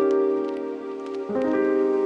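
Background music of slow sustained chords, with a new chord coming in about a second and a half in.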